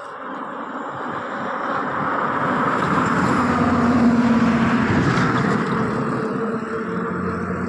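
A motor vehicle passing close by: engine hum and road noise swell to a peak about four seconds in, then fade slowly.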